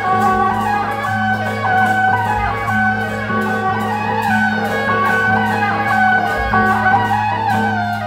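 Music: a plucked-string melody over sustained low bass notes and a steady beat.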